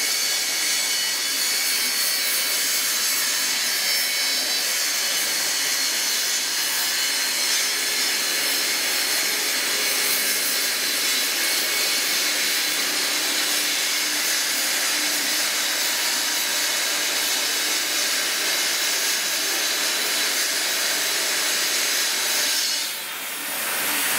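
Gas torch flame hissing steadily as it heats brass parts for silver soldering. The hiss dips briefly near the end, then picks up again.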